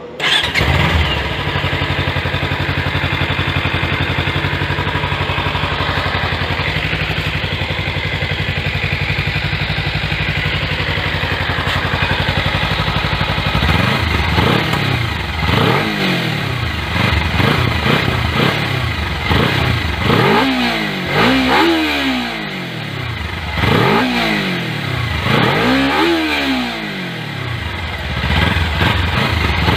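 Brand-new Kawasaki Ninja 300's parallel-twin engine on its stock exhaust, idling steadily at first, then revved repeatedly from about halfway through. The pitch climbs and falls with each of a string of throttle blips.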